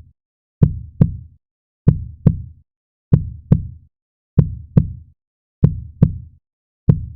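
Heartbeat sound effect: a slow, steady lub-dub of paired low thumps, one pair about every second and a quarter, with dead silence between them.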